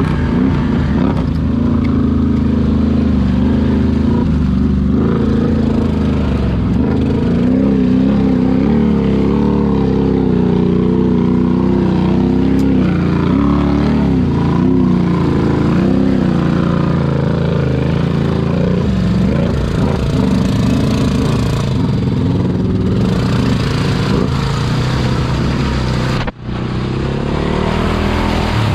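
Honda ATV engine running under load through mud, its pitch rising and falling as the throttle is worked. The sound drops out for an instant near the end.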